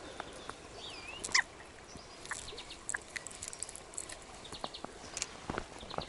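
Faint clicks and small rustles of hands unhooking a chub from a small plastic wobbler with treble hooks, with a short bird chirp about a second in.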